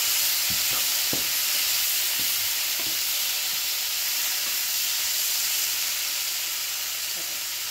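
Chicken pieces, bell peppers and onion sizzling steadily in a frying pan as a wooden spatula stirs them. A few spatula knocks and scrapes against the pan come in the first three seconds.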